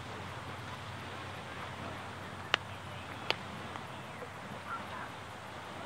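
Beach ambience: a steady hiss of wind and small surf, broken about halfway through by two sharp clicks less than a second apart.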